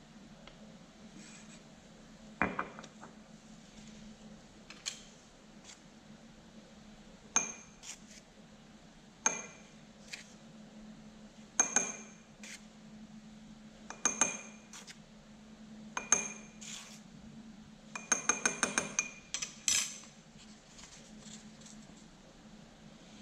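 Glassware clinking: a glass vessel is struck about a dozen times at irregular intervals, each clink ringing briefly at the same pitch, then a quick run of taps near the end.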